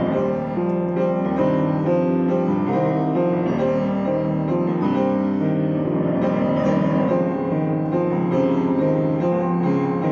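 Piano played with both hands: a continuous flow of overlapping sustained notes and chords, mostly in the middle register.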